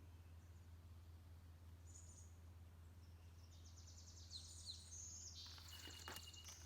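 Faint birdsong outdoors: a few high chirps, then about halfway through a run of quick high trilled notes and short down-slurred whistles, over a low steady hum.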